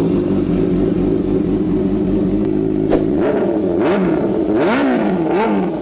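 Honda Hornet 600's inline-four engine, fitted with an aftermarket slip-on exhaust, idling steadily, then revved in about four quick throttle blips that rise and fall in pitch in the second half.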